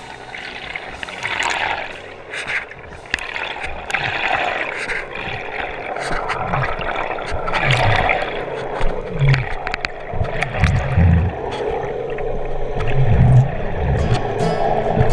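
Water gurgling and rushing against an underwater GoPro camera's housing, with crackles and, in the second half, repeated dull low thumps.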